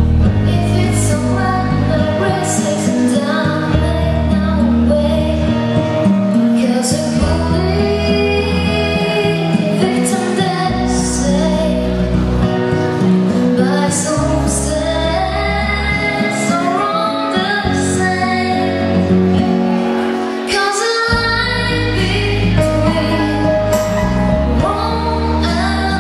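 A girl singing a song into a microphone over an instrumental backing with a bass line and regular percussive hits.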